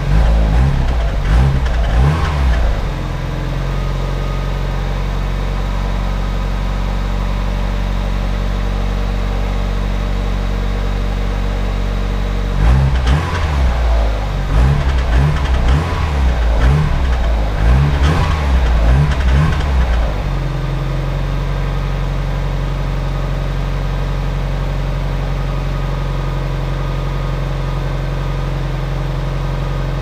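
Mazda MX-5 Miata NB's four-cylinder engine heard at the tailpipe through a Supercat aftermarket muffler: a few quick revs at the start, then a steady idle. About 13 s in comes a run of quick throttle blips lasting some eight seconds, and then it settles back to idle.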